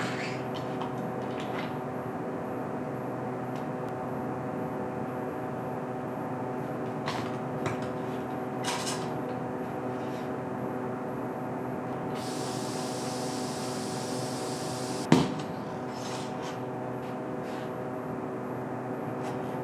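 Steel bar clamps being set and tightened on a glue-up: scattered metal clicks and scrapes, with one sharp loud clack about 15 seconds in. A steady machine hum runs underneath throughout, and a hiss lasts about three seconds just before the loud clack.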